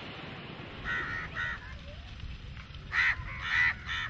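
Crows cawing: two caws about a second in, then three more in quick succession near the end.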